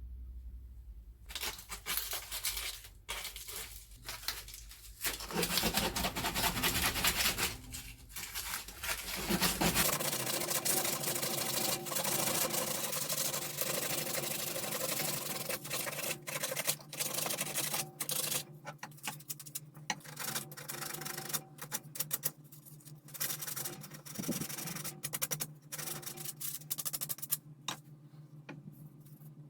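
Sandpaper rubbing along a wooden pool cue in quick back-and-forth strokes, steady through the middle and broken into shorter strokes near the end, with a low steady hum underneath from about a third of the way in.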